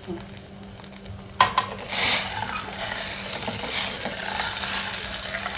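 A steel ladle stirring milk and sago pearls in a hot stainless steel pan. It clicks once against the pan about a second and a half in, then scrapes and stirs over a steady hiss.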